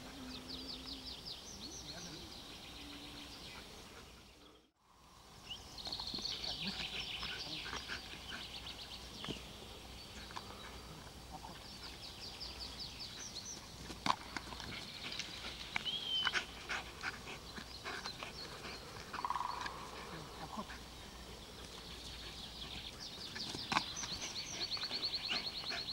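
Small wild songbirds singing, with rapid high trilled phrases repeating every few seconds and an occasional whistled note, over a few sharp clicks. The sound drops out completely for a moment about five seconds in.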